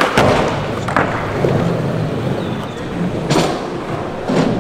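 Skateboards rolling on a skatepark surface, with several sharp board impacts, landings and tail slaps: a pair at the start, one about a second in, and two more near the end.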